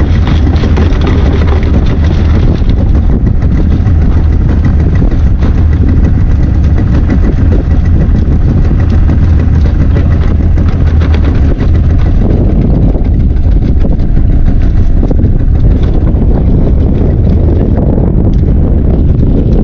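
Fishing boat's engine running steadily under way, with wind buffeting the microphone.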